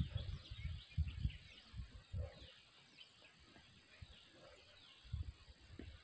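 Dull scrapes and thumps of red soil being dug out by hand from a bamboo rat burrow, mostly in the first second and again about five seconds in. Small birds chirp faintly throughout.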